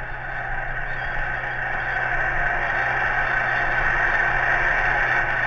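Basketball game crowd cheering in a dense, continuous wash of many voices that slowly grows louder.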